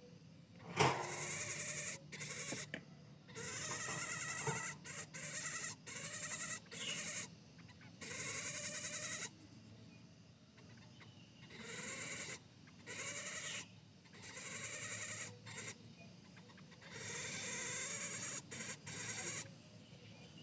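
Lesser coucal giving its harsh, rattling 'mbeset-mbeset' call over and over, in bursts from half a second to about two seconds long with short gaps, and a longer pause about ten seconds in.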